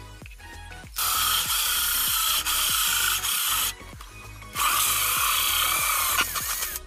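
Cordless drill driving a hole saw into PVC pipe, cutting in two loud spells of about three and two seconds with a short pause between. Background music plays underneath.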